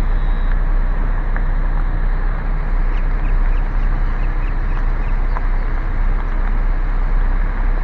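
Steady road and engine rumble of a car driving slowly. A series of short high chirps, a bird calling, comes about three to five seconds in.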